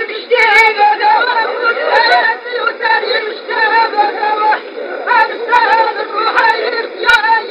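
A man chanting lines of a poem in a sung, wavering recitation voice, with a thin, narrow sound that lacks bass and top.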